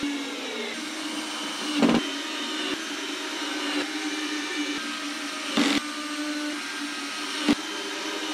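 A small electric power tool's motor running steadily with an even whine, with three short, louder bursts spread through it.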